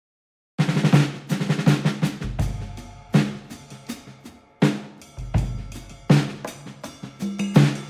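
Background music with a drum-kit beat of snare and bass drum over deep bass, cutting in about half a second in after a moment of silence.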